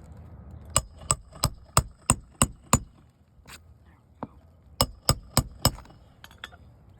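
Roofing nails being driven into shingles with a slide-hammer nail driver (roof snake): sharp metal-on-metal strikes with a ringing tone. Seven strikes come in quick succession, about three a second, then two single strikes, a run of four more, and a few light taps near the end.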